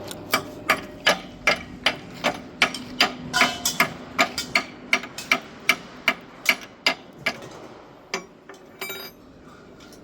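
Hammer striking steel in a steady rhythm, about two and a half blows a second for some seven seconds, then a few lighter taps near the end.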